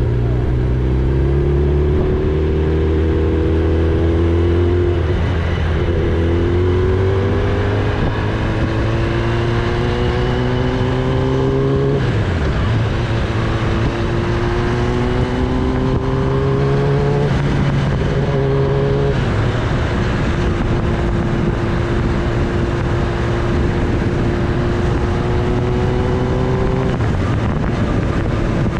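Kawasaki Ninja ZX-10R's inline-four engine accelerating through the gears, its pitch climbing and dropping back at each of several upshifts. In the second half it holds a steady pitch at cruising speed.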